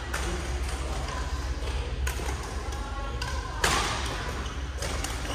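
Scattered thuds and knocks, the loudest about two-thirds of the way in, over a steady low hum and background voices.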